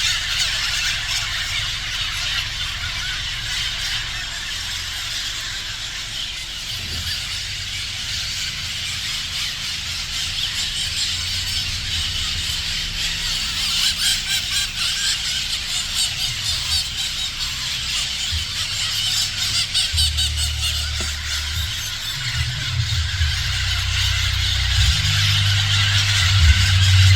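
Steady, high-pitched insect chorus that shimmers without pause, with a low rumble underneath that swells in the last several seconds.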